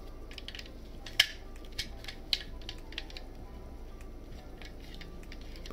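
Hard plastic parts of a Super Minipla Live Boxer snap-fit robot kit clicking and tapping as they are handled and pressed together, with a sharper click about a second in and a few lighter ones after.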